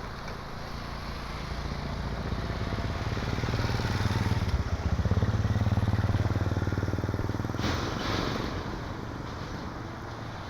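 A small engine passing by, growing louder to a peak mid-way and then fading away, with a brief rushing noise near the end.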